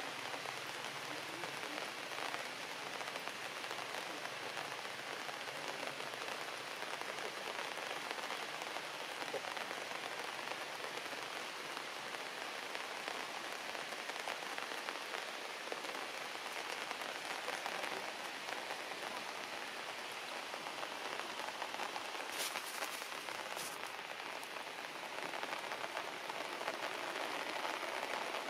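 Heavy rain falling steadily on grass and leaves.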